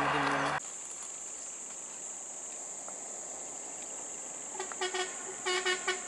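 Steady high-pitched drone of insects, with a vehicle horn tooting in two quick bursts of short beeps, about four and a half and five and a half seconds in. A louder vehicle rumble cuts off abruptly about half a second in.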